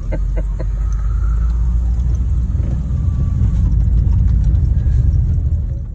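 Car driving along a dirt road, heard from inside the cabin: a steady low rumble of tyres and engine that grows a little louder, then drops away abruptly at the end.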